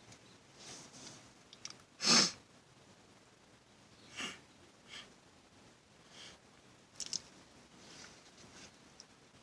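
A man sniffing and breathing through his nose with pepper up it: one sharp, loud nasal burst about two seconds in, then a few softer sniffs, with a couple of small clicks near the end.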